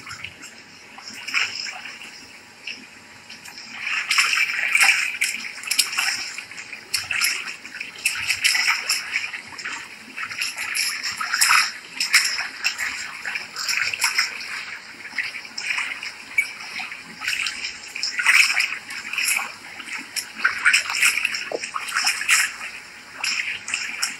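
Pool water splashing and sloshing in irregular bursts as a dog scrambles onto a floating bodyboard and moves about on it, louder from about four seconds in.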